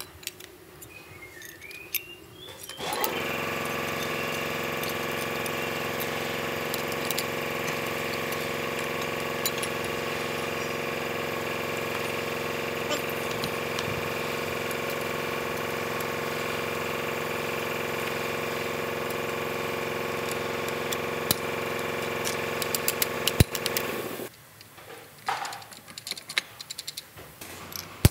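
A motor runs steadily at one unchanging pitch for about twenty seconds, starting abruptly about three seconds in and cutting off near the end. Light clicks and clinks of metal parts come before and after it.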